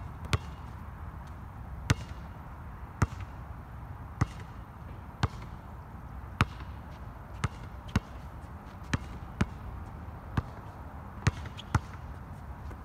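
A basketball bouncing on an outdoor hard court as it is dribbled: sharp single bounces about once a second, unevenly spaced, over a steady low rumble.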